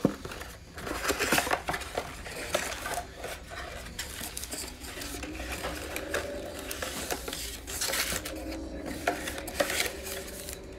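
Hands unboxing a cardboard trading-card mega box: a continuous run of crinkling, rustling, scraping and light clicks as the wrapping is torn off, the box flaps are opened and the card packs are pulled out.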